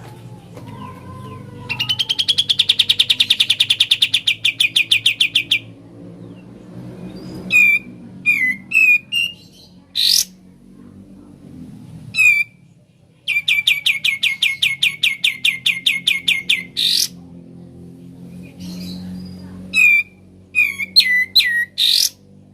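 Kapas tembak bulbul singing its 'ngebren' song: two long, rapid rattling trills of about ten notes a second, each lasting several seconds, with short sharp whistled notes between and after them.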